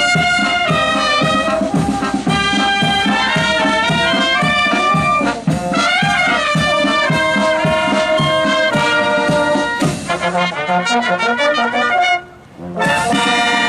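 Marching band of brass and clarinets playing a march with a steady beat. Near the end the playing stops briefly, then comes back on a loud held chord.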